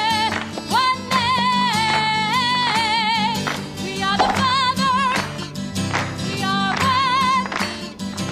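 A woman singing long held notes with a wide vibrato, accompanied by a strummed acoustic guitar.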